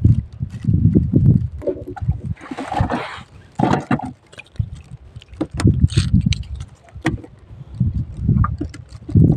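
Water slapping and gurgling against the hull of a small drifting boat in uneven low surges, with a few brief hissing splashes and light clicks.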